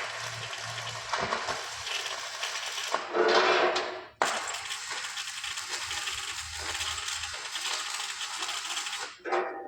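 Electric arc welder crackling and sizzling steadily as a bead is laid, over a low hum. The arc breaks off about four seconds in, strikes again straight away, and stops near the end.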